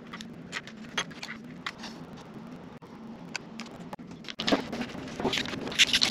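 Light scattered clicks and taps of small plastic tools on a laptop's aluminium case. From about four seconds in, louder, denser scraping and clicking as a plastic card is worked under a glued battery cell to pry it loose.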